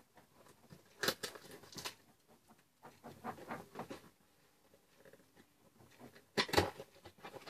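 Close handling noises of unboxing: packaging rustling and scraping with a few sharp knocks, the loudest about a second in and again about six and a half seconds in.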